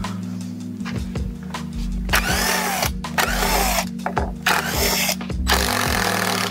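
DeWalt cordless driver spinning, backing the screws out of a door hinge in several short bursts.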